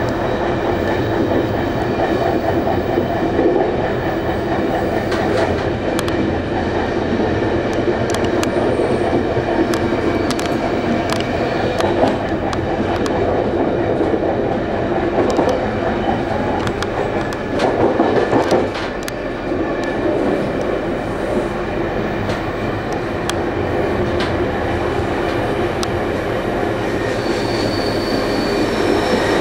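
Electric commuter train running along the track, heard from inside its rear end: a steady rumble of wheels on rail with scattered clicks over joints, and a brief high wheel squeal near the end as the train rounds a curve.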